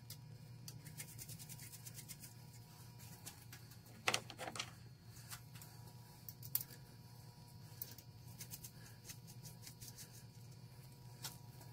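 Light metallic clicks and taps from hands fitting parts onto a lathe's change-gear train, with a louder clink about four seconds in. A steady low hum runs underneath.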